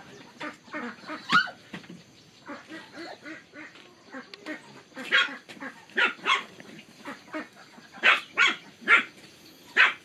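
A dog barking and yipping over and over in short calls, louder around the middle and again near the end.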